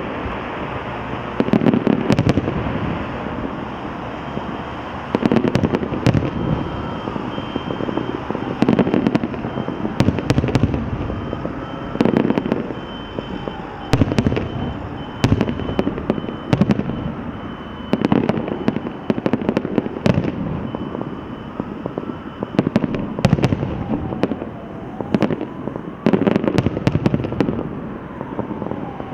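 Aerial fireworks show: shells bursting in quick, irregular volleys of sharp bangs over a continuous crackle and rumble, with clusters of heavier booms every few seconds.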